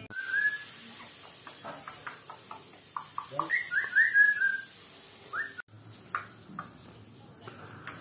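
African grey parrot whistling: a short rising whistle, a run of quick clicking notes, then a cluster of short rising whistle notes about halfway through and one more shortly after.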